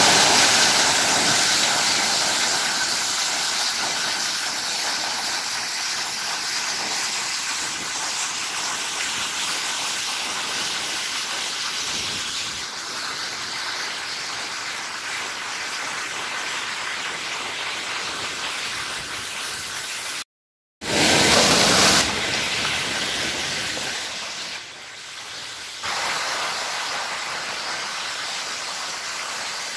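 Giessbach Falls, a mountain-stream waterfall, rushing over rock cascades as a steady, loud hiss of falling water. About two-thirds of the way in the sound cuts out for half a second, then comes back louder for a moment.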